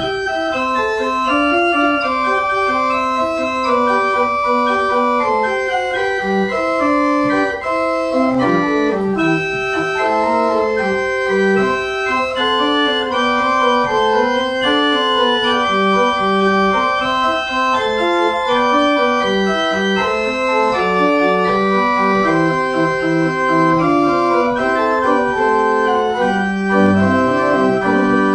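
Pipe organ playing a piece in several voices: held notes and moving lines that change steadily throughout, with lower notes coming in near the end.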